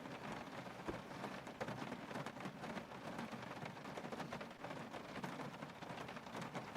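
Steady rain pattering, dense small drops ticking without a break.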